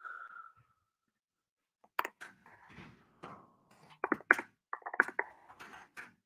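Video-call audio breaking up over a bad internet connection: a brief tone at the start, then from about two seconds in a run of sharp clicks and crackles with garbled, chopped-up fragments between them.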